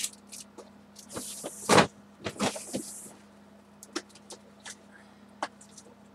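Craft supplies being handled on a tabletop: scattered light clicks and knocks with two short stretches of rustling, the loudest knock about two seconds in, over a steady low hum.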